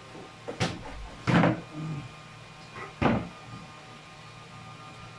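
Three sharp knocks of dishes and containers being handled and set down on a small table, the loudest about a second and a half in, over a faint steady hum.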